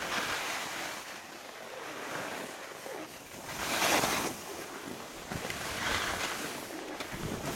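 Skis scraping and hissing over snow through mogul turns, with wind rushing past the microphone; the rush swells with the turns, loudest about four seconds in.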